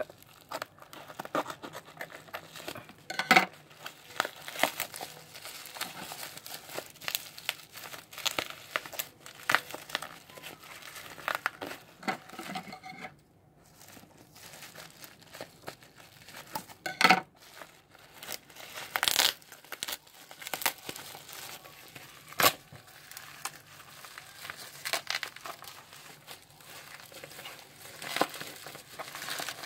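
A plastic courier mailer lined with bubble wrap being handled and cut open with scissors: irregular crinkling and rustling of plastic, broken by a few sharp snaps and snips. The loudest snaps come a few seconds in and again after the middle, with a brief lull just before the middle.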